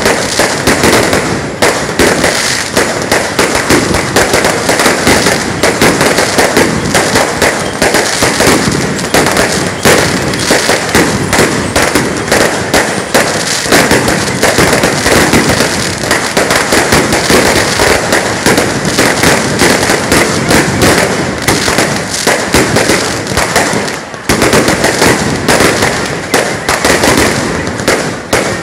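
Firecracker strings going off in a loud, dense, continuous crackle of rapid bangs, with a brief lull about 24 seconds in.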